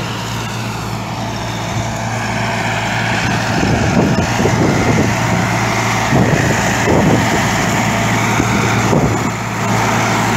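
Massey Ferguson tractor engine running steadily under load, driving a straw reaper that chops wheat stubble and blows the straw into a trolley. The chopping gives an uneven crackle over the hum, strongest in the middle.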